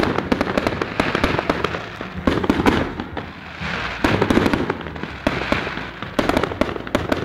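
Fireworks salute going off: a dense, continuous run of crackling pops and bangs, swelling louder every second or two.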